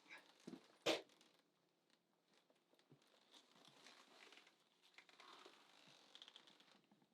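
A sharp click about a second in, then faint rustling and crinkling that stops near the end.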